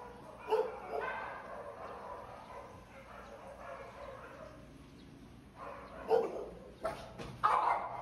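Dogs barking: one bark about half a second in, then several barks in quick succession near the end.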